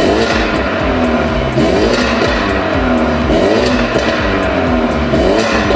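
BMW G20 330i's 2.0-litre turbocharged four-cylinder being free-revved through a de-catted Armytrix exhaust, in several quick blips that each rise and fall in pitch.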